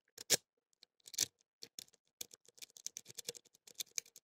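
Lock pick clicking and scratching against the pin tumblers inside a Bane pin-tumbler padlock: a few separate clicks, then a quick, irregular run of small clicks from about two seconds in.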